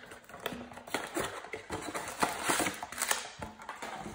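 Hands opening a cardboard trading-card blaster box and pulling out its foil packs: a run of cardboard scrapes, clicks and foil crinkles.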